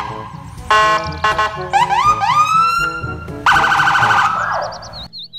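Police siren sounding in short bursts: a few quick rising whoops, then a rapid pulsing tone that falls away and cuts off about five seconds in, over background music.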